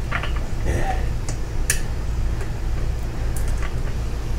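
A handful of light, sharp metal clicks and taps from small jack parts and a clip being handled and fitted, over a steady low rumble.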